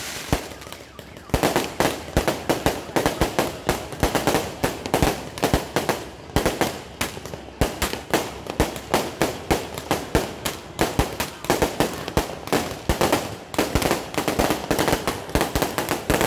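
Fireworks going off in a rapid, continuous barrage of sharp bangs and crackles, several a second. The barrage starts about a second in, after a brief quieter lull.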